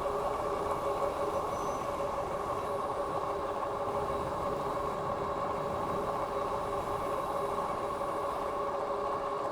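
A Philodo H8 all-wheel-drive fat-tyre e-bike riding along: its dual hub motors and tyres give a steady whine of a few even tones over road and wind noise.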